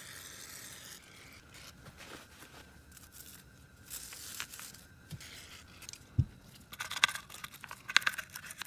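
An aerosol can of throttle body cleaner hisses for about a second. Then comes intermittent scraping and rubbing as the dirty throttle body is scrubbed clean, which turns into a run of quick, scratchy strokes near the end.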